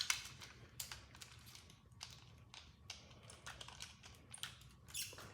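Faint, irregular light clicks and taps of plastic Beyblade tops and a launcher being handled and loaded.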